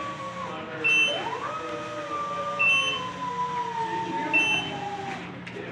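Electric scissor lift's motion alarm beeping three times, about every two seconds, over a steady whine from its drive that rises about a second in and then slowly drops in pitch as the lift moves.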